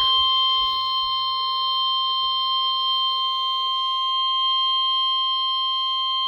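NOAA Weather Radio warning alarm tone: one steady, single-pitched electronic tone near 1 kHz, signalling that a severe thunderstorm warning broadcast follows.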